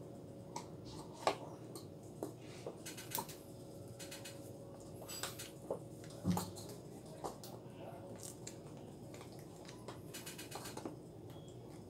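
Wet feet shifting in clear plastic high-heeled mules on a terrazzo floor: scattered clicks, taps and small squishy crackles of wet skin and plastic, with a heavier knock just after six seconds. A faint steady hum runs underneath.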